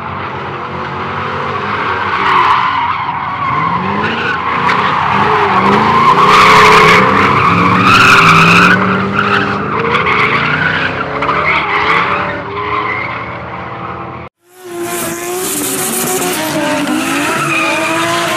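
Drift cars sliding through a corner in tandem: engines revving up and down over continuous tyre squeal. The sound cuts off suddenly about fourteen seconds in, then more engine and tyre squeal follows, brighter in tone.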